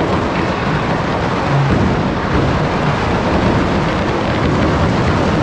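Firecrackers going off in a dense, unbroken crackle with a thundering rumble underneath, loud throughout.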